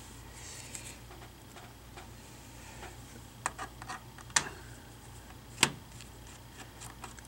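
Scattered light clicks and taps of a precision screwdriver and tiny screws on a MacBook Air's bottom lid as its screws are taken out one by one, with three sharper clicks in the middle stretch. A faint steady hum lies underneath.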